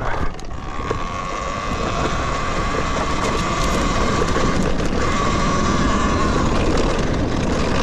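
Talaria Sting electric dirt bike running under power, its motor giving a steady high whine that breaks briefly about five seconds in, over wind and trail noise. Scattered clicks and rattles come from the bike, a loose-part noise the rider can't yet place and suspects could be a cap hitting.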